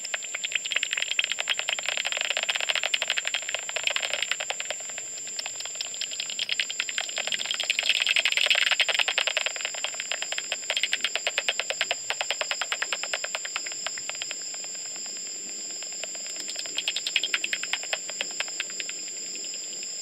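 Bat echolocation calls made audible by a homemade bat detector: rapid trains of clicks that swell and fade as bats fly past, densest and loudest about halfway through. Beneath them runs a steady high whine.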